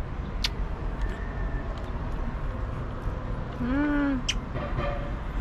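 Outdoor street background with a steady low rumble. About four seconds in, one short voice-like call rises and falls in pitch, and there are a few faint clicks.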